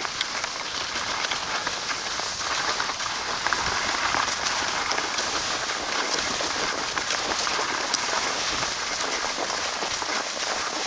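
Skis sliding over packed snow: a steady hiss with many small crunches and clicks.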